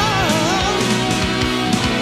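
Hard rock music: electric guitars over a steady drum beat, with a wavering high lead line in the first half.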